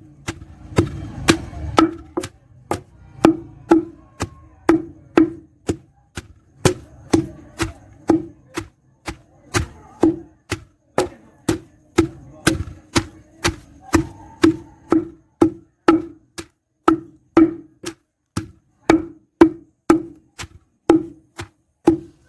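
Pestle pounding pawpaw stem and leaf in a mortar: steady, evenly spaced thuds, about two strokes a second, each with a short hollow ring.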